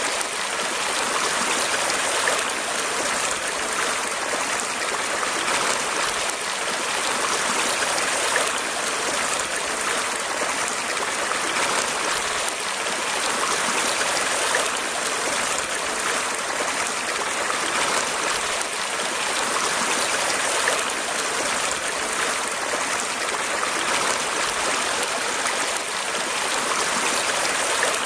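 Running water, a stream flowing steadily with a constant rushing hiss.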